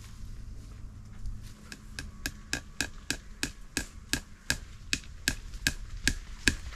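Hammer tapping steadily, about four light blows a second starting around a second and a half in, each a sharp metallic tap with a short ring: fencing staples being driven to fix barbed wire to a new treated wooden post.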